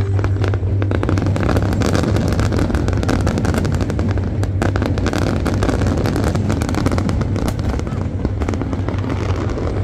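Large fireworks display going off in a rapid, dense barrage of bangs and crackles over a steady low rumble.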